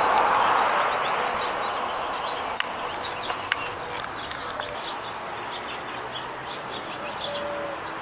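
Small birds chirping again and again in short high notes, over the noise of a passing vehicle that fades out in the first couple of seconds. A few sharp clicks come about three seconds in.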